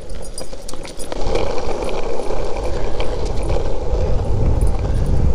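Longboard wheels rolling fast over asphalt, a steady rumble that gets louder about a second in, with scattered light clicks.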